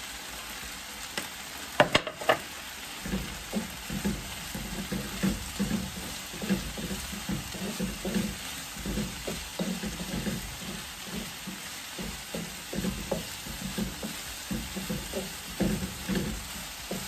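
Chopped vegetables sizzling in a wok over a gas flame, stirred with a wooden spoon that knocks and scrapes against the pan about twice a second from about three seconds in. A couple of sharp taps about two seconds in.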